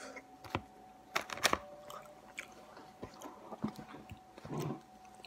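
A person chewing a mouthful of crispy, oven-browned burrito: irregular crunches and wet mouth clicks, loudest about a second and a half in.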